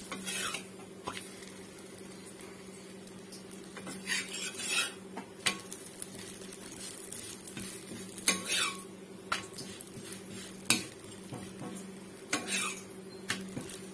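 Flat metal spatula scraping and tapping on an iron tawa as a chapati is pressed and turned, in scattered short strokes over a steady low hum.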